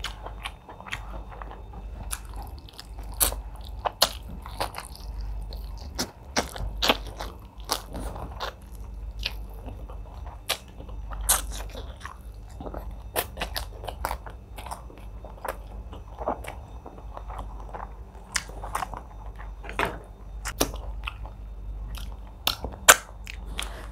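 Close-miked chewing and wet lip-smacking of a person eating egusi soup with fufu and meat by hand, with irregular sharp mouth clicks, several a second.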